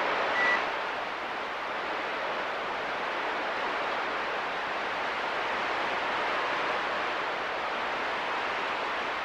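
CB radio receiver static between transmissions: a steady hiss with the squelch open. A short high beep sounds about half a second in.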